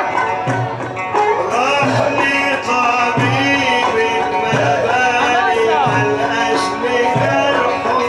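Egyptian Sufi inshad music: hand drums beat regular deep strokes under a sliding, heavily ornamented melody.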